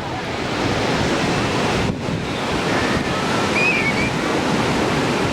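Ocean surf breaking and washing on a beach, a steady rushing noise, with wind buffeting the microphone.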